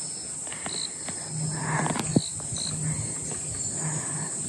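Steady high-pitched buzzing of insects in the forest, with a few short chirps over it and a couple of sharp clicks about two seconds in.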